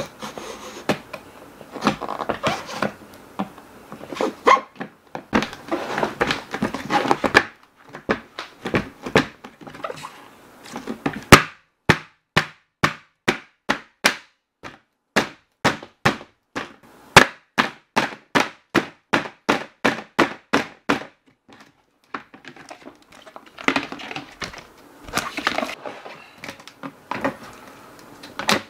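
Utility knife blade cutting through a hard plastic storage-bin lid, a dense crackling scrape. In the middle comes a long even run of sharp cracks, about two a second, as the plastic is worked, and the scraping cut comes back near the end.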